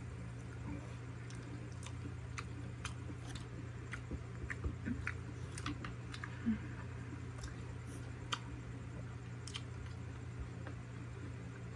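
Close-miked chewing of a siomai dumpling: scattered small wet clicks and smacks from the mouth, over a steady low hum.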